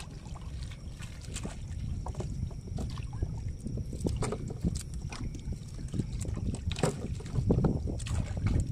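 Water splashing and dripping as a hand scoop net is dipped and lifted beside a small boat, with short irregular splashes over a low wind rumble on the microphone.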